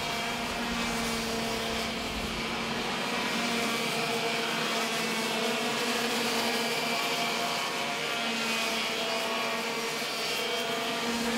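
Racing go-kart engines running as the karts race around the track: a steady, unbroken engine drone.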